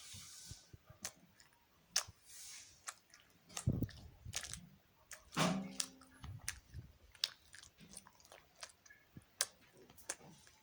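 Close-up chewing of gummy jelly candy: irregular wet smacks and clicks of the mouth, with two louder low thumps about four and five and a half seconds in.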